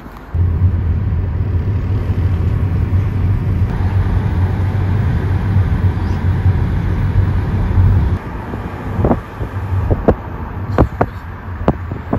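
Steady low rumble of a car on the move, heard from inside the cabin, starting abruptly about half a second in and easing off near eight seconds. Several sharp clicks follow near the end.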